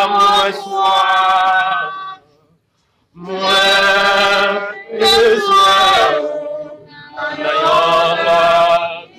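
Worship singing: voices singing a slow song in long held phrases, with a short break about two seconds in.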